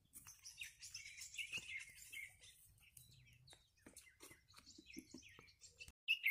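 Many small songbirds chirping and twittering together in the trees, a dense chorus in the first few seconds that thins to scattered chirps.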